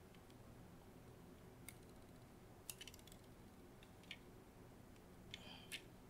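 Near silence broken by a handful of faint, sharp clicks and ticks: metal tweezers and small plastic parts being worked at a ribbon cable connector inside an opened computer mouse.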